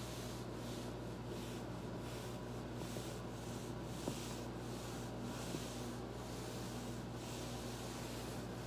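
Foam roller rubbing against a body and clothing in repeated rolling strokes, a hiss that swells and fades about once a second, over a steady low electrical hum. Two faint sharp clicks come about four and five and a half seconds in.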